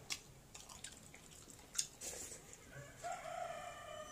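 Soft mouth clicks and smacks of eating, then a rooster crowing about three seconds in, one drawn-out call.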